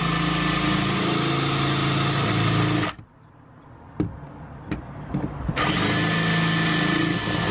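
Cordless DeWalt drill with a quarter-inch bit drilling out a speaker-mounting rivet in a car door panel: one steady run that stops about three seconds in, a click, then a second shorter run near the end.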